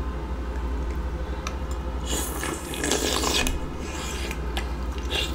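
Scraping, rustling handling noise as the seafood boil is handled, strongest for about a second and a half near the middle, with a few sharp clicks, over a steady low hum.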